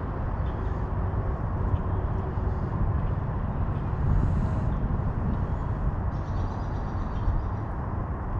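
Steady outdoor background rumble, strongest in the low end, with no distinct events.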